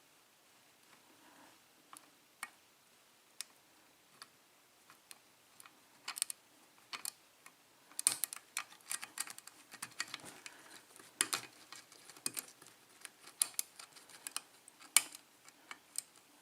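Small metal clicks and ticks of a short hook pick working the pin stacks of a Wilka euro cylinder lock under tension during single-pin picking. The clicks are scattered at first and come much quicker and denser from about halfway.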